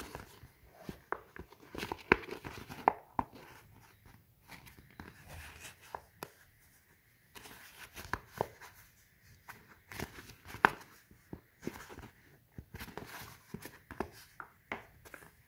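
Scored polypropylene sheet being folded and bent by hand: irregular crinkling with many sharp clicks scattered throughout.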